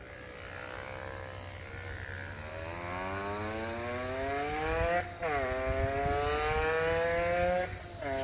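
Aprilia RS50 mk1's 50cc two-stroke single accelerating towards the listener at part throttle, growing louder. Its note climbs steadily, drops suddenly on an upshift about five seconds in, climbs again, and drops on another shift near the end.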